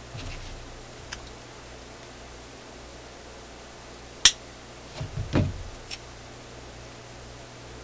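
Small electronic parts handled at a workbench: a sharp click just after four seconds, then a short run of dull bumps and another click, over a steady low hum.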